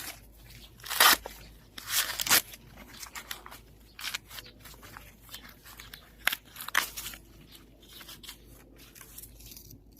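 Sweet corn husks and leaves tearing and rustling as ears are handled and stripped by hand, in irregular bursts with the loudest about one, two and near seven seconds in.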